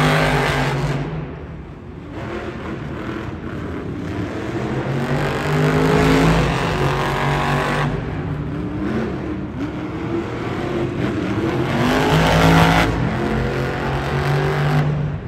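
Monster truck engine, a supercharged methanol-burning V8, revving hard in long surges that swell and ease, loudest about six and twelve seconds in.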